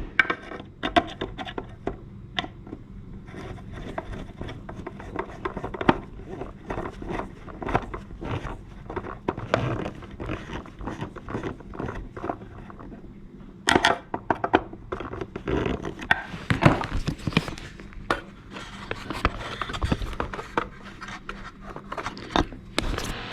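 A screwdriver driving screws back into a wall clock's case, with irregular scrapes, clicks and knocks as the parts are handled.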